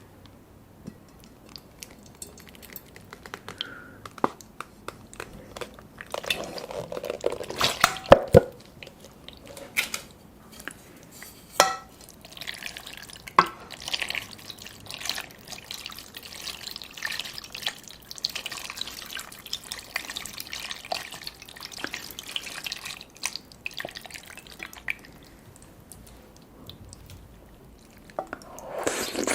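Wet, gurgling slurps of taro milk tea and tapioca pearls being sucked up through a straw, with scattered small wet clicks; the slurping is heaviest about a quarter of the way in and through the middle.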